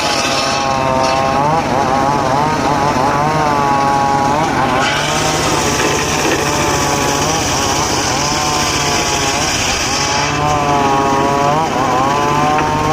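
Engine-driven circular sawmill blade cutting teak logs: the motor's pitch sags and recovers again and again as the blade takes load in the wood, over a steady hum and a hiss of cutting that swells and fades.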